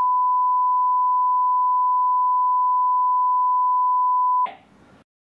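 Censor bleep: one long, steady, high beep at a single pitch, blanking out a spoken line. It cuts off suddenly about four and a half seconds in.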